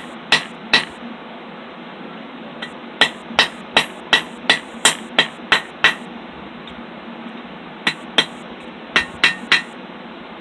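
Hand hammer striking hot 3/8 in. round steel over a hardy-style hot cutoff, splitting the flattened end of a roasting stick. The blows come in runs of about three a second with short pauses between, each a sharp metallic strike with a brief ring.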